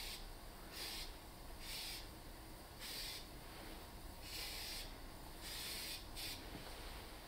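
Electrostatic powder-coating spray gun spraying in short hissing bursts, about one a second, over a steady low hum.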